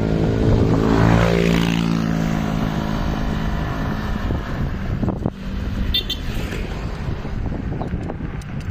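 A motor vehicle engine passing close by in the first two seconds, its pitch shifting as it goes. Then steady wind rush over the microphone while riding, with a brief high chirp about six seconds in.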